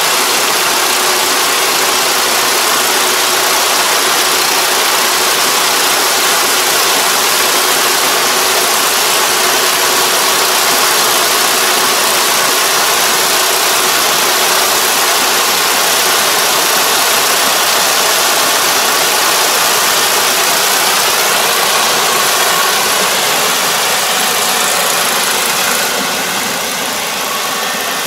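Rice combine harvester running steadily while it cuts and threshes, its engine and threshing machinery making a continuous dense mechanical noise that eases slightly near the end as the machine moves away.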